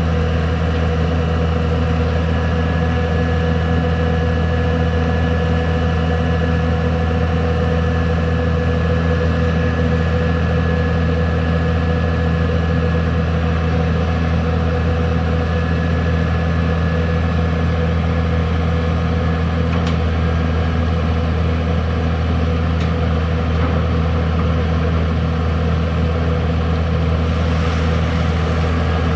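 Komatsu PC200 long-arm excavator's diesel engine running steadily as it digs, a constant low drone with even overtones. A faint thin whine comes and goes during the first half.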